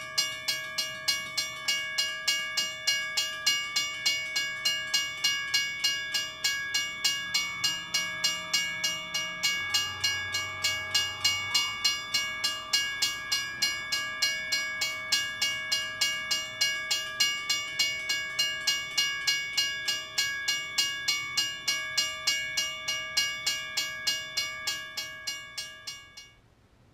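A rapid, even metallic ringing clang, about three strikes a second with a sustained ringing tone, while a model railroad turntable rotates. It cuts off suddenly near the end as the turntable stops.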